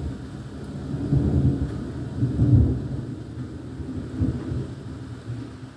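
Thunder rolling in a long low rumble that swells twice in the first three seconds and fades toward the end.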